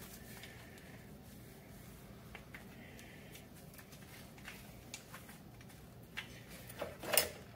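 Faint, scattered clicks and handling noise from loosening the rear axle nut on an electric scooter's hub motor, with a louder clatter about seven seconds in.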